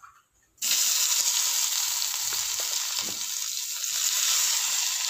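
Spiced mushroom, potato, onion and tomato mixture tipped into hot oil in a kadai, starting to sizzle suddenly about half a second in and going on steadily. A spatula stirs it, with a few light knocks against the pan.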